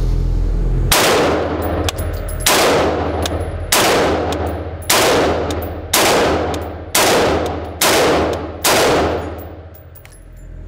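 Beretta ARX 100 semi-automatic 5.56 rifle firing eight shots, about one a second, each ringing out in the echo of an indoor shooting range.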